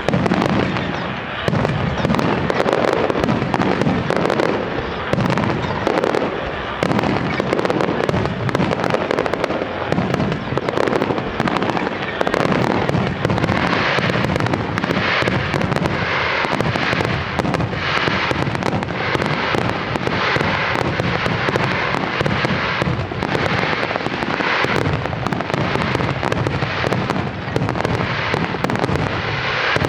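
A star mine fireworks barrage: shells launched and bursting in quick succession, a continuous run of booms and crackle. In the second half, sharper bursts come at a steady pace of about one a second.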